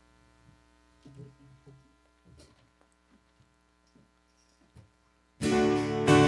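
Quiet pause with a steady electrical hum and a few faint soft knocks, then about five seconds in loud instrumental music starts abruptly: the introduction to the responsorial psalm.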